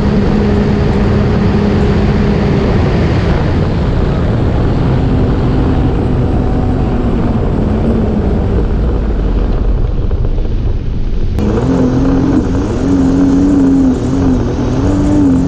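Sea-Doo jet ski engine running at speed, under a heavy rush of wind and water spray over the craft-mounted camera. The engine note drops about two and a half seconds in. About eleven seconds in it jumps back up and wavers.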